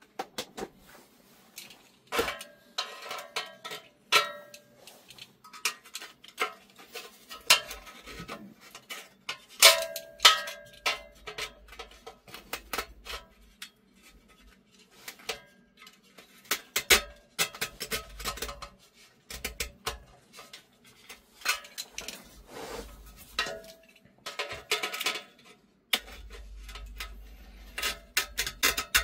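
A blade cutting and scraping around the glued spider of an 18-inch speaker to free it from the frame: irregular clicks, scrapes and knocks, with dull handling thumps of the speaker near the end.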